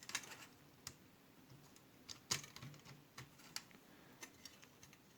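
Faint, irregular light clicks and taps from handling the tin toy's wires and battery contacts by hand, the loudest about two seconds in; no motor hum is heard.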